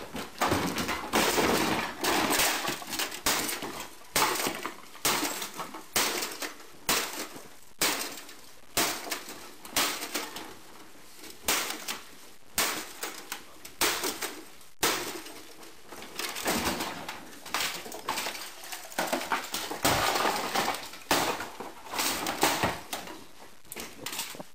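A plastic fax machine being smashed with a bat: a rapid series of blows, about one to two a second, with the housing cracking and breaking apart.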